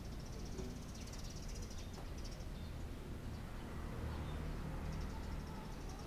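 A high, rapid chirring trill from a small animal, heard for the first two seconds or so and again near the end, over a low steady rumble.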